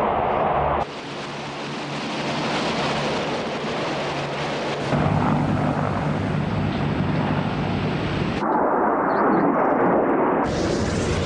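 Military vehicle and jet noise cut together from several shots: steady hovercraft landing-craft engine noise at first, then a deep rumble through the middle, and jet aircraft noise near the end. The sound changes abruptly at each cut.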